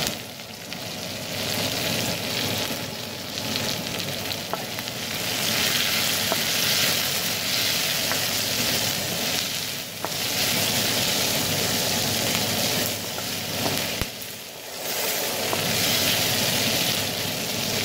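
Chopped onion and garlic sizzling in hot oil in a steel kadai as they are sautéed and stirred with a wooden spatula. The sizzle dips briefly just after the start and again about 14 seconds in.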